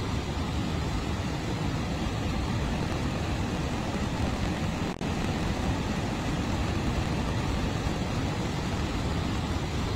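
Steady, low roar of floodwater pouring from the Three Gorges Dam's open spillway gates into the plunge pool below, with a momentary dip about halfway.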